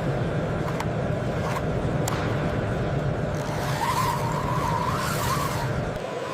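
Radio-controlled model vehicle running: a high whine that wavers up and down in pitch over a steady rumble, with a few sharp clicks early on.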